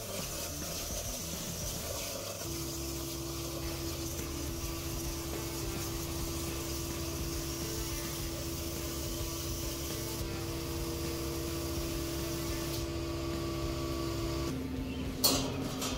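CNC plasma table cutting sheet steel: the YesWelder CUT-65DS plasma arc hisses steadily while the gantry's stepper motors hum and whine as they drive the torch along the cut. The motor tone drops in pitch near the end, followed by a single sharp click.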